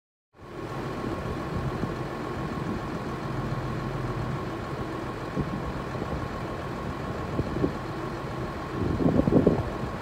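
Tractor engines idling steadily, with a short louder surge about nine seconds in.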